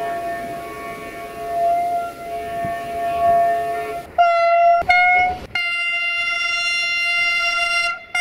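Train horns sounded back to back with abrupt cuts between them: a softer sustained horn note for the first half, then two short loud blasts about four seconds in and a long blast of roughly two and a half seconds near the end.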